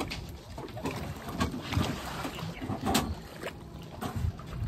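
Water sloshing against the side of a small fishing boat, with wind on the microphone and a few light knocks.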